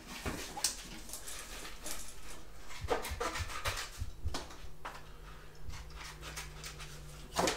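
Aviation tin snips cutting the end of Straight-Flex composite drywall corner tape to a 45-degree angle: a scatter of short snip clicks amid rustling of the tape being handled, the loudest click near the end.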